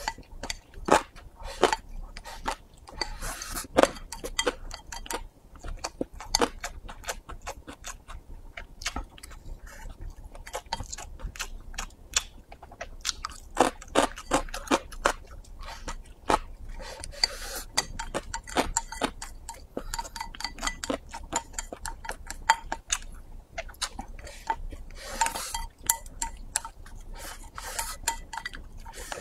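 Wooden chopsticks clicking and scraping against a ceramic rice bowl as fried rice is pushed into the mouth, with close chewing. The taps come fast and irregularly, with a few short rushing scrapes as rice is shovelled from the bowl's rim.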